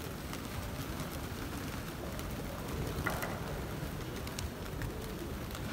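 Large flock of feral pigeons fluttering and flapping their wings in a steady, rain-like patter of many small wingbeats, over a constant low city hum.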